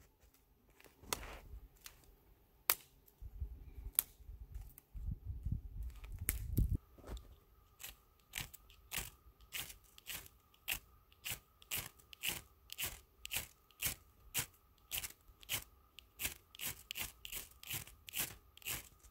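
Boots crunching in snow for the first several seconds, then a long run of short, sharp scraping strokes at about two a second: a ferrocerium rod being struck with its striker over a tinder bundle to throw sparks.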